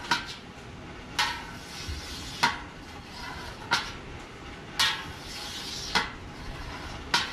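A metal curd knife knocking against a stainless steel cheese pot about once every 1.2 seconds, seven sharp clinks in all, as it makes cut after cut through the set curd.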